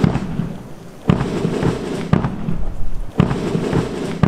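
Heavy booming hits, evenly spaced about one a second, over a low sustained tone between them, like the percussion of a dramatic soundtrack.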